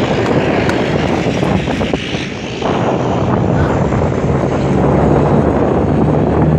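De Havilland Canada Dash 8 turboprop airliner at takeoff power on its takeoff roll: a loud, steady rush of engine and propeller noise, with a low steady propeller hum coming in about two-thirds of the way through.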